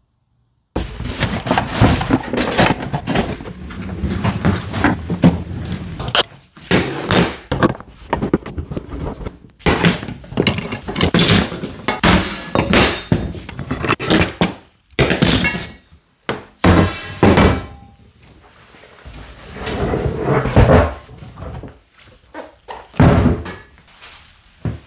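Repeated knocks, thuds and rattles of a rolled 3 mm polypropylene tank body being handled, with the clamps and straightedge holding it. Busy and dense at first, thinning out to a few separate knocks in the later part.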